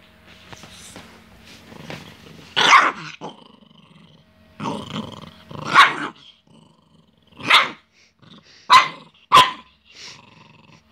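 Small peke-a-pin (Pekingese–miniature pinscher mix) dog growling and giving about six short barks: a warning at a hand reaching in to free her.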